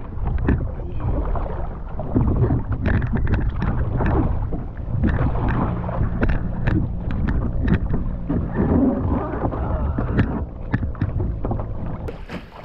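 Kayak paddling: a paddle dipping and splashing, water lapping and sloshing against a plastic sit-on-top kayak hull, with a steady low rumble underneath.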